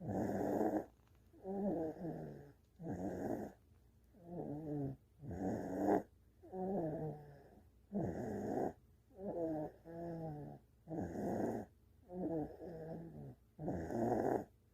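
Steady rhythmic snoring, one breath cycle about every two and a half seconds. Each cycle pairs a pitched snore that falls in pitch with a rougher, noisier breath.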